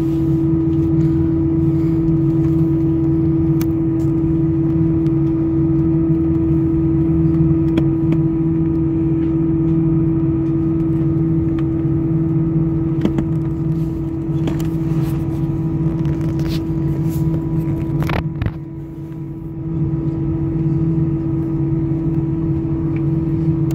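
Steady droning hum of a jet airliner on the ground, heard inside the cabin, with one strong even tone over a low rumble. About eighteen seconds in there is a short sharp noise, and the drone dips for a second or two before returning.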